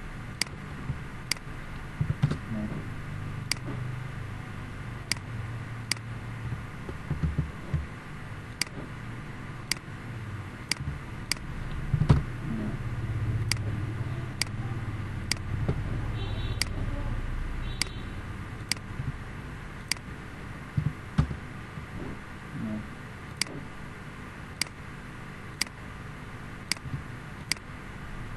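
Sharp ticks at a steady pace of about two a second, over a low rumbling hum that swells and fades, with two short beeps about two-thirds of the way through.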